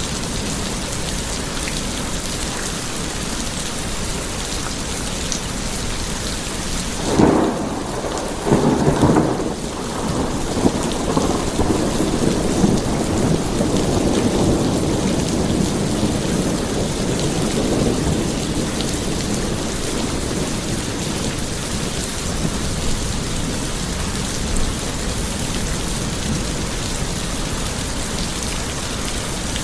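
Steady rain on a surface, with a sharp thunderclap about seven seconds in and a second crack a moment later, then rolling thunder that rumbles and fades away over about ten seconds.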